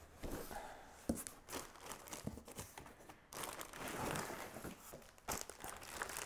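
Clear plastic packaging bag crinkling and rustling in irregular bursts, with a few sharp knocks, as a plastic-wrapped vacuum part is pulled out of a cardboard box.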